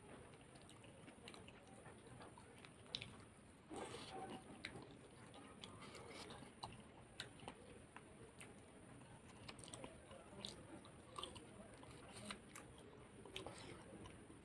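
Faint close-up eating sounds of a man chewing and biting on spicy chicken feet: soft wet mouth noises with small crunchy clicks. A louder bite comes a little under four seconds in.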